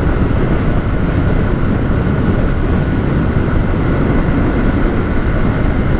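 Honda CG 150 Titan motorcycle being ridden at steady speed, its single-cylinder engine running under a steady rush of wind on the microphone.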